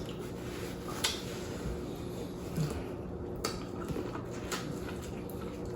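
Quiet eating at a table: a handful of faint, sharp clicks and taps, scattered over a few seconds, against low room noise.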